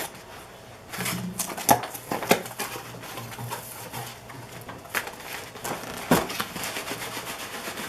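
A sealed cardboard case of trading-card boxes being opened by hand: rustling and scraping, with several sharp knocks as the packaging gives way.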